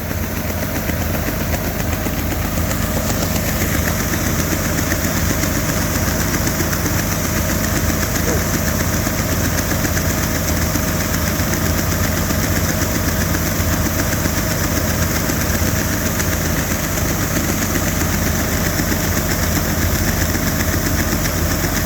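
Engine running steadily at constant speed while grain is loaded into a nearly full bin, with a broad rushing hiss over the engine note.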